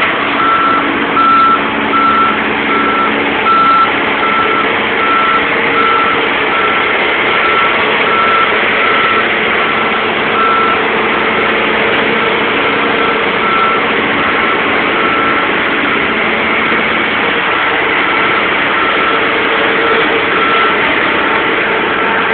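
Reversing or travel alarm on heavy construction plant beeping evenly at about one beep a second, with a short break about two-thirds of the way through, over the steady noise of diesel machinery working.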